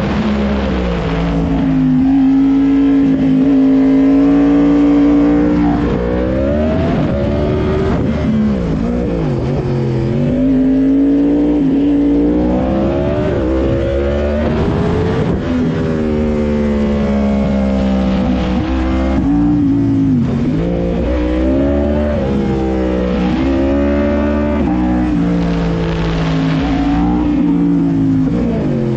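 Sport motorcycle engine running hard through the bends, its pitch rising and falling repeatedly as the rider accelerates, shifts and rolls off the throttle.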